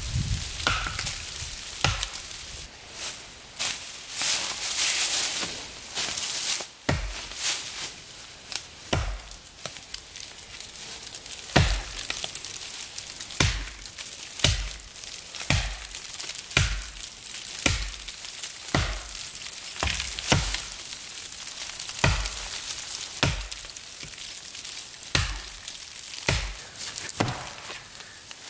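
Axe blows chopping into the trunk of a standing tree to cut a felling notch, a sharp chop about once every second or so.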